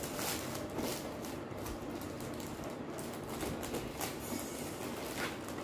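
Plastic courier mailer rustling and crinkling as it is pulled and cut open with scissors, with a few sharper crackles along the way.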